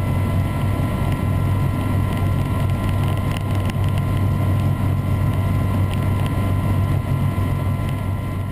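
Helicopter in flight: a steady, loud low drone of rotor and engine with a steady high whine above it.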